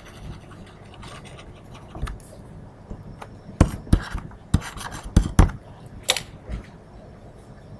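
Pen stylus writing on a tablet: a soft scratching and rubbing broken by a string of sharp taps as the strokes are made.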